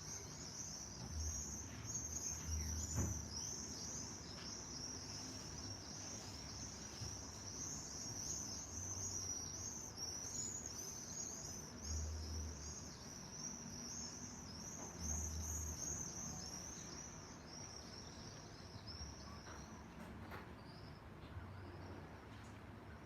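A chorus of many small birds chirping at once: dense, high-pitched twittering with overlapping calls, thinning out near the end.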